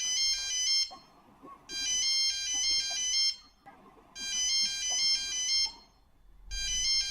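Philips mobile phone ringtone: a short, high-pitched electronic melody of quick stepping beeps. The phrase repeats about every two and a half seconds with a brief gap between repeats.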